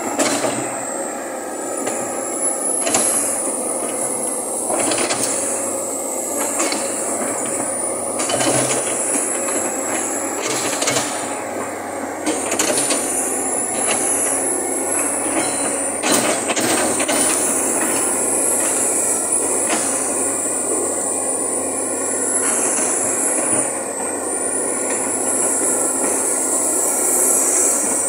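Komatsu PC200-7 hydraulic excavator at work: its six-cylinder diesel running under load, with a high whine that rises and falls in waves as the boom and bucket move, and several sharp metal clanks. Near the end the machine drives on its steel tracks.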